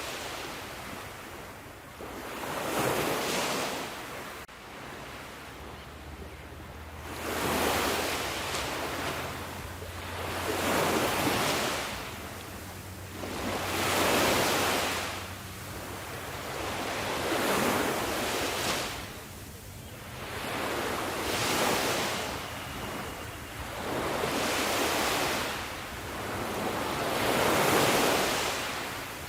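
Ocean waves breaking on the shore, the surf swelling and receding about every three to four seconds.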